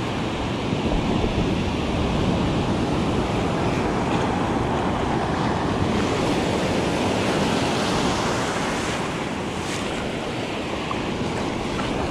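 Ocean surf breaking and washing up over the shallows, a steady rushing noise, with wind blowing across the microphone.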